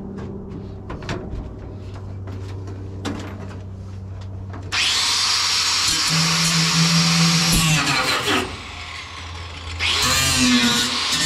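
Handheld angle grinder grinding the steel cab floor of a 1950 Chevy 3100, throwing sparks. After a few seconds of handling clicks it starts up and runs loud for about three seconds, then winds down. It spins up again about two seconds later and keeps grinding.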